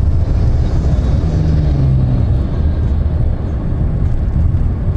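Steady low rumble of a vehicle running, with a faint low hum rising briefly about a second in.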